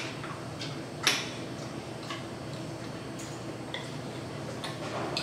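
A chimpanzee eating from a crumpled paper bag: irregular crinkles of paper and mouth clicks, one louder about a second in.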